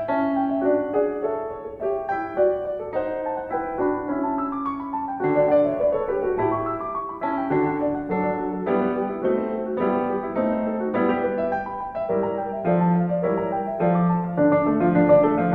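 Background piano music: a steady run of notes played one after another, with a bass line under a melody.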